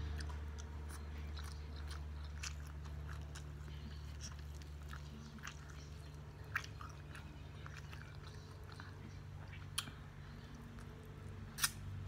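Close-miked chewing of fried perch, with many small wet mouth clicks and smacks. A few sharper clicks come about six and a half seconds in, about ten seconds in, and near the end, over a low steady hum.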